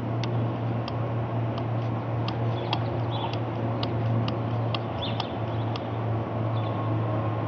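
Twin-turboprop airliner flying high overhead: a steady low propeller drone, with scattered sharp ticks and a few brief bird chirps.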